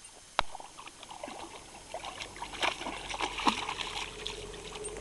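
A wet puppy splashing at the edge of shallow water: an irregular patter of small splashes and drips, busiest around the middle. A single sharp click comes about half a second in.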